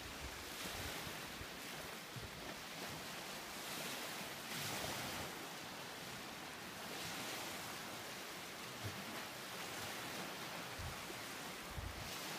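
Small lake waves washing onto a pebble beach, the wash swelling every two or three seconds, with light wind buffeting the microphone.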